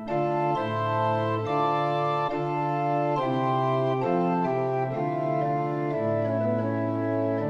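Organ playing a psalm tune in slow, held chords over a moving bass line, the chords changing about once a second.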